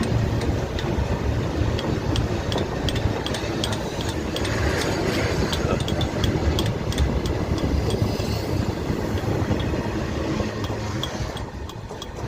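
Train running along the track: a steady low rumble with frequent metallic clicks and rattles, easing off near the end.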